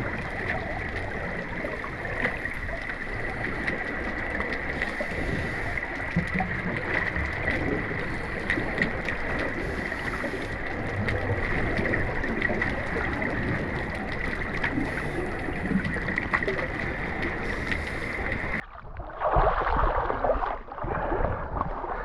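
Water rushing and gurgling, recorded underwater by a snorkeler's action camera in a spring run, with a steady high tone over it. About eighteen seconds in the sound changes abruptly to a choppier, muffled splashing as the camera breaks the surface.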